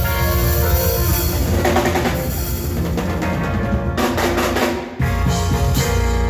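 Band playing makossa music, led by a busy drum kit with bass drum, snare and drum rolls under held melodic notes.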